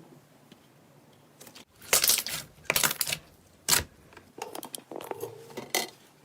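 Slime being squeezed and pressed by hand, giving a few loud crackling pops about two to four seconds in, then a run of softer crackles.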